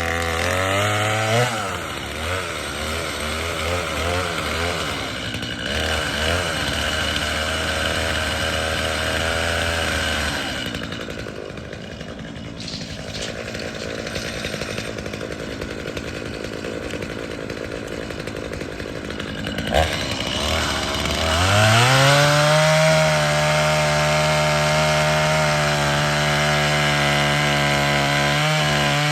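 Three-cylinder diesel engine of a Kioti CK3510SE compact tractor running under the backhoe work. It revs up about a second in, runs quieter for a stretch in the middle, and revs up again near the end to a steady higher speed.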